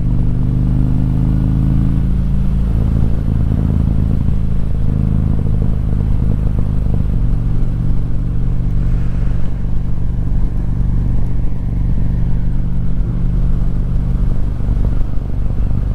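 Harley-Davidson V-twin engine running at road speed with wind noise, heard from the rider's seat. The engine note shifts a couple of times in the first few seconds.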